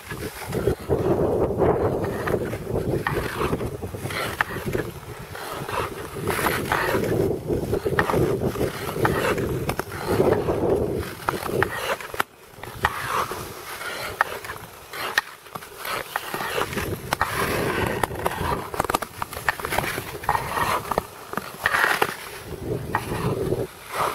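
Nordic touring skate blades gliding and pushing over clear lake ice: a scraping hiss that swells with each stroke, every second or two.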